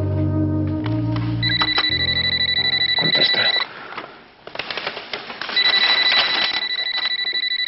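Telephone ringing: two electronic trilling rings of about two seconds each with a pause between, as background music dies away at the start.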